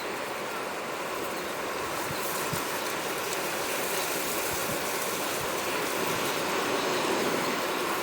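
Sea waves washing in, a steady rushing that slowly swells louder.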